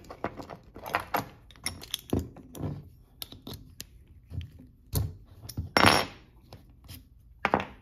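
Small metal tool parts clicking and clinking as a flat spanner works a die grinder's collet loose and a mandrel is handled. A louder rasp lasting about half a second comes just before six seconds in.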